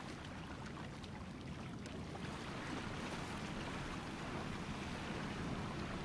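Steady rushing noise of sea water and wind.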